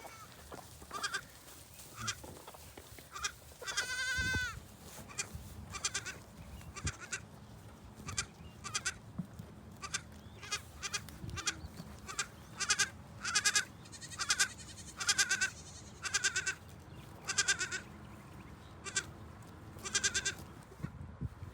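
Goats bleating: many short bleats, with one longer, falling bleat about four seconds in.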